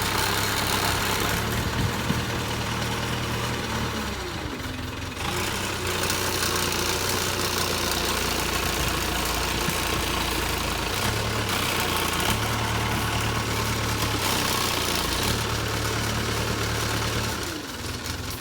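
Diesel engine of a JCB 3CX backhoe loader running steadily, its note shifting a few times as the machine works.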